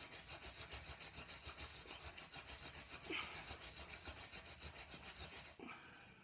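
Burdock hand-drill spindle spun back and forth between the palms into a willow hearth board, making a friction fire: a fast, even rhythm of wood rubbing on wood. It stops suddenly shortly before the end.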